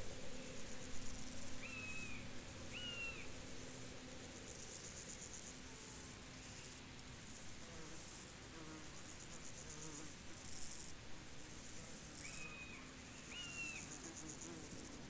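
Field insects, crickets by their sound, chirping in steady high-pitched pulsing trains. A bird gives two short calls about two seconds in, and the same pair comes again near the end.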